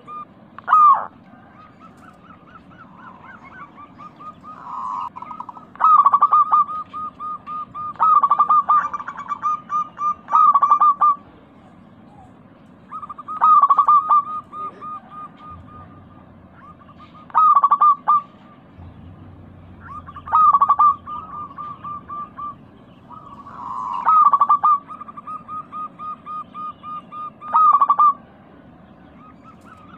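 Local zebra doves (perkutut) cooing in repeated phrases. Each phrase is a loud opening note followed by a rapid run of softer, evenly spaced coos, repeating every few seconds with some phrases overlapping. This is the 'crystal-voiced' perkutut song used as a lure to get other perkutut to sing.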